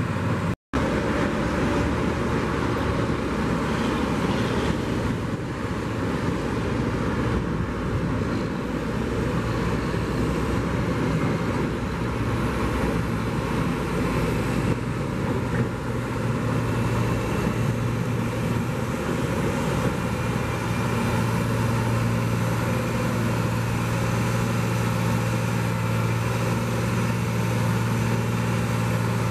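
Steady road traffic noise from a busy highway, with the low, even hum of an engine running that grows stronger about two-thirds of the way through.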